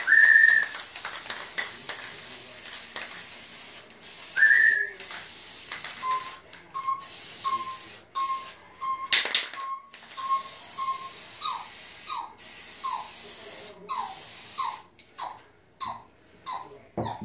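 Congo African grey parrot whistling over and over: a few long whistles that rise and level off, then a run of short, even whistles about two a second, then a string of falling notes. Under them a spray-paint can hisses on and off.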